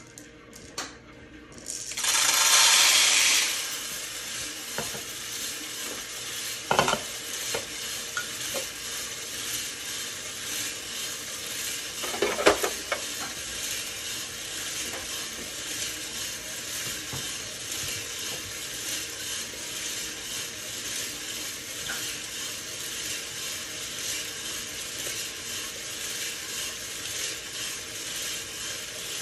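Hottop drum coffee roaster running, with coffee beans rattling steadily as they tumble in the rotating drum over a faint motor hum. About two seconds in there is a loud rushing burst, and two single knocks come later.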